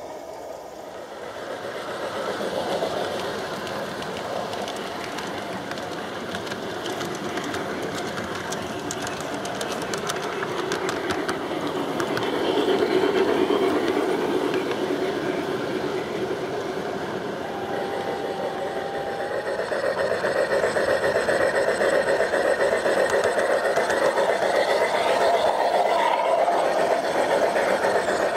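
G-scale garden railway train running along the track: a steady clatter and rumble of wheels on the rails that grows louder as a string of loaded tipper wagons rolls past close by, with a patch of quick clicks before it.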